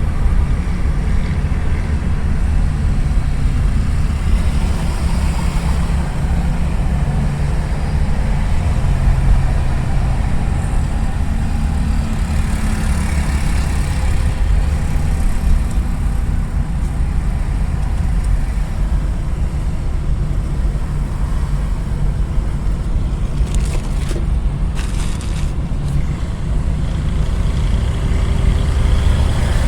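Car driving on a city road: a steady low engine and road rumble with a few brief knocks about three quarters of the way through.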